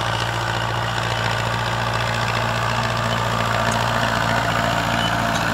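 Belarus 510 tractor's diesel engine running steadily while the tractor pulls a tillage implement across a field.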